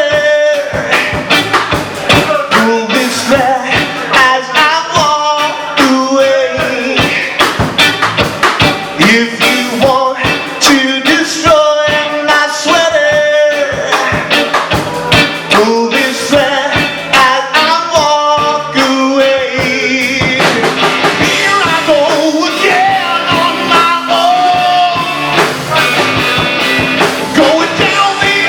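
Live rock band playing an instrumental break of a blues-rock song: a bending lead melody line over drums and bass.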